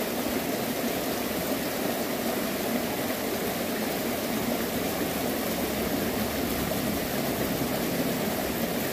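Steady rush of a shallow river flowing over rocks.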